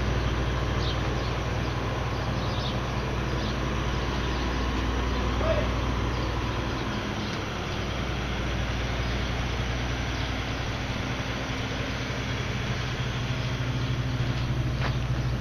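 Claas Tucano 430 combine harvester's diesel engine running steadily, its level dipping slightly about halfway through.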